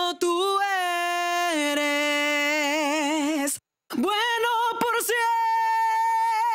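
An unaccompanied lead-vocal track, one voice singing long held notes with vibrato, played back through the Kiive Audio Xtressor NUKE compressor plugin. The voice breaks off briefly for a breath a little past halfway.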